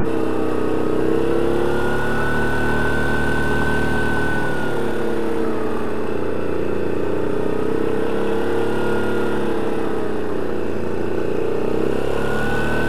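ATV engine running on a snow track ride, its pitch rising and falling gently as the throttle is eased on and off, with a higher whine moving along with it.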